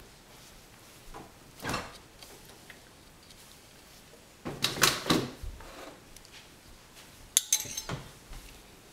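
Metal spoon scraping and knocking against the side of a glass bowl as it scoops a plug out of set gelatin, in a few short scrapes with the loudest about halfway through. A sharper clink comes near the end as the spoon is set down in a ceramic cup.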